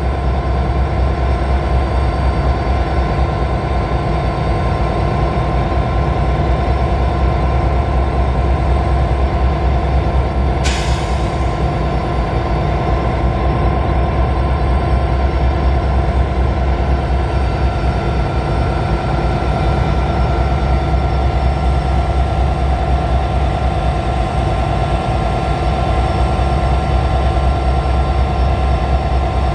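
Canadian National diesel-electric locomotives idling steadily after being started up, a deep constant engine hum with steady higher tones over it. About ten seconds in there is one short, sharp hiss.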